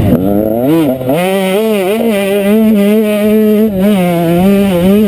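Motocross bike engine, heard from the rider's helmet, revving up and down briefly, then held at high revs at a near-steady pitch with small wobbles as the bike accelerates along a straight, with a short dip in revs past the middle.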